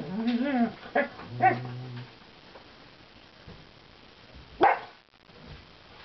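Dogs vocalizing at close range: a wavering whine and low growling in the first two seconds, then a single short, sharp bark a little over four and a half seconds in.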